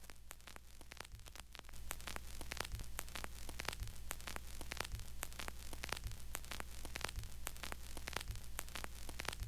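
Faint crackling static over a steady low hum, with many scattered clicks and soft low thumps about once a second, growing slightly louder about two seconds in.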